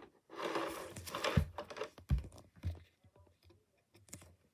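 Figurine packaging being handled during unboxing: a rustle of cardboard and plastic, then a few light clicks and knocks.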